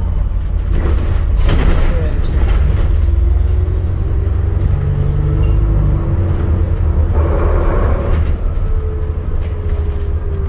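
Ride noise of an ADL Enviro400 MMC hybrid double-decker bus on the move: a steady low rumble with faint whining tones that slide slowly in pitch, and two brief louder rushing noises, one about a second and a half in and one around seven seconds in.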